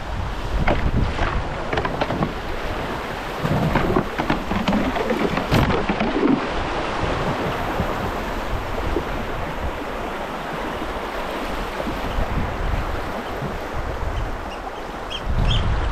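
Rushing water of a shallow river rapid around a canoe, with short splashes during the first several seconds, over a low rumble of wind on the microphone.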